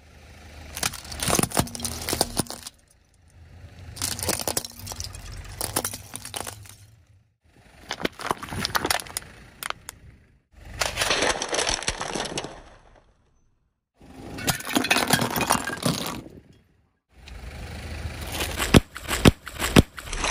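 A run of about six short bursts of a car tyre rolling over and crushing objects: crackling, cracking and snapping over a low rumble. Each burst stops suddenly, with a brief silence before the next.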